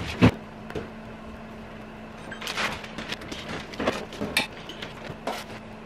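Groceries being put away in a refrigerator: a sharp knock just after the start, then a bag rustling about two and a half seconds in, and a few short taps and clinks as items are set on the shelves, over a steady low hum.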